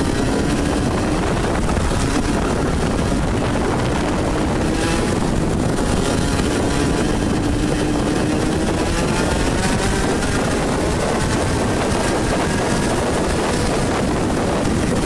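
Vortex Mini ROK 60cc two-stroke kart engine running under way, its pitch slowly climbing over several seconds and easing near the end, over heavy wind noise on the microphone.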